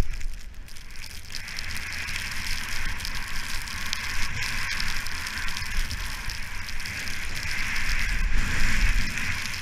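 Skis hissing steadily through fresh powder snow, with wind rumbling on the microphone that swells near the end.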